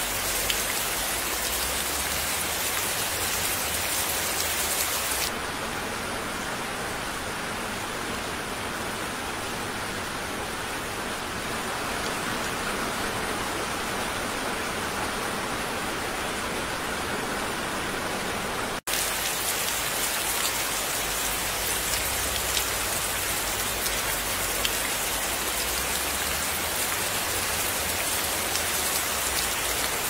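Steady rain falling, an even hiss of many drops. About five seconds in it loses some of its highest hiss, and about two-thirds of the way through it cuts out for an instant before carrying on.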